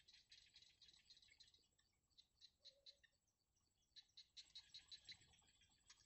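Bittern nestlings giving faint, fast clicking and ticking begging calls in quick runs, louder about four seconds in, with one short low note just before the middle.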